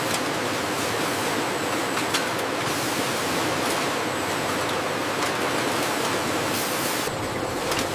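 Steady, dense production-line machinery noise, like a constant hiss, with a few faint ticks. The higher part of the hiss drops away about seven seconds in.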